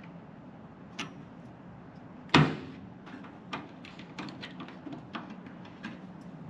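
Small clicks and taps from working the microwave's light-bulb holder free of its clip, with a sharp, loud knock about two and a half seconds in and a lighter one about a second in.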